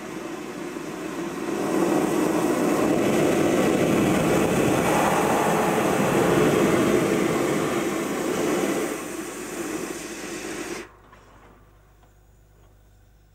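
Steam locomotive boiler blow-off valve opened: steam and hot water rush out with a steady hiss as mud and loose scale are blown from the boiler. The hiss swells about two seconds in and cuts off suddenly near the end as the valve is shut.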